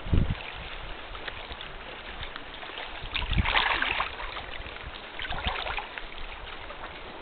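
Sea water lapping and trickling around a canoe, with a dull low bump at the very start and two louder splashes about three and a half and five and a half seconds in.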